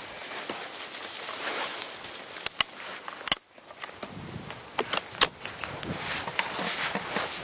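Handling noise as a 30-30 rifle is raised to aim: clothing and gear rustling, with about six sharp clicks and knocks, a pair at roughly two and a half seconds in, the loudest a moment later, and three more around five seconds in.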